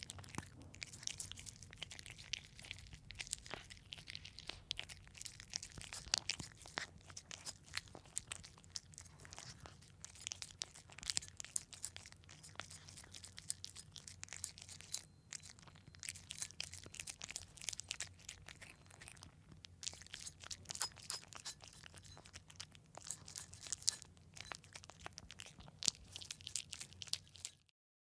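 A cat eating wet food: a dense, irregular run of wet chewing clicks and chomps, sounding like an animal chomping on meat, stopping just before the end.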